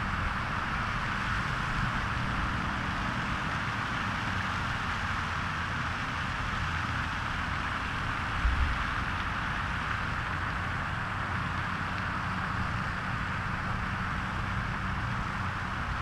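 Steady outdoor background noise: an even hiss with a low rumble underneath, and one brief low thump about eight and a half seconds in.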